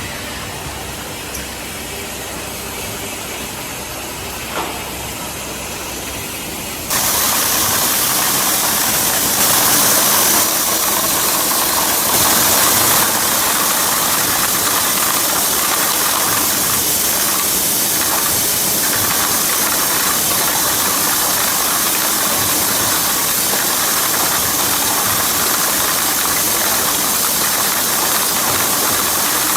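Automatic closure-cap waterfall sorting machine running, a steady mechanical hum with a strong hiss. About seven seconds in, it abruptly gets louder and brighter, with two short louder stretches a few seconds later.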